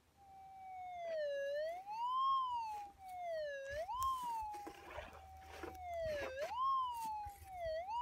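Minelab GPZ 7000 metal detector's audio tone rising and falling in pitch four times as the coil is swept back and forth over a buried target, a very nice sounding signal that the prospector takes for a good piece of gold.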